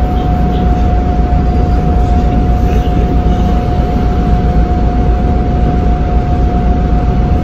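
Interior of a moving city bus: a loud, steady low engine and road rumble, with a steady high tone running over it.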